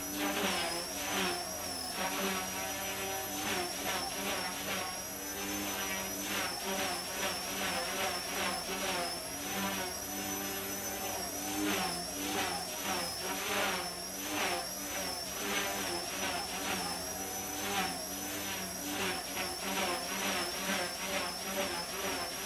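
Micro collective-pitch RC helicopter with dual brushless motors in flight: a high-pitched motor whine that wavers up and down continuously as the throttle and pitch change, over the buzz of the spinning rotor blades.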